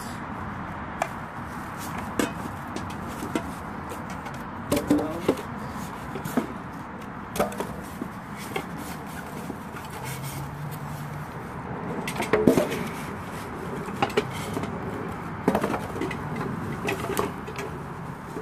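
Unpacking noises: plastic wrapping rustling, foam packing inserts rubbing and squeaking, and scattered knocks of grill parts against the cardboard box and table, busiest about 12 seconds in.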